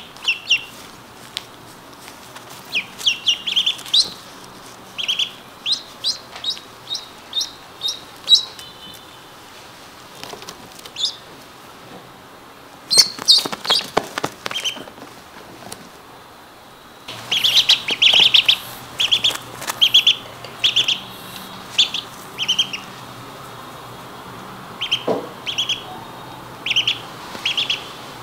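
Several ducklings peeping: short, high calls in quick runs, sparse for a few seconds near the middle and busiest a little past halfway.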